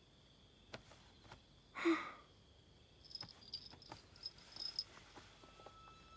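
Crickets chirping steadily in the night, with scattered light clicks and one short, louder rustle about two seconds in.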